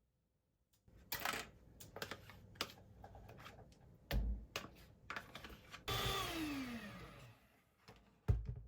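A small electric kitchen appliance motor, such as a blender or food processor, runs in a short burst and then spins down with a falling pitch, among clatter and knocks of kitchen utensils.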